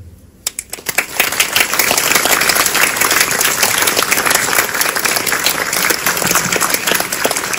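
Audience applauding. A few scattered claps come about half a second in and build within a second into full, steady applause.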